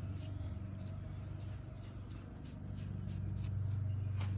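Light, repeated rubbing and scratching, a few strokes a second, over a steady low hum.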